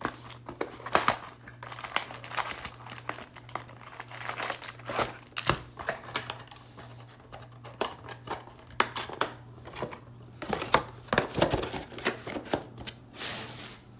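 Trading-card pack wrappers crinkling and rustling as they are handled and torn, in a run of irregular rustles and small clicks.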